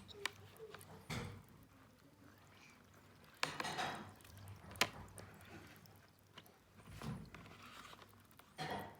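Small handling sounds: two sharp clicks and a few short scrapes and rustles.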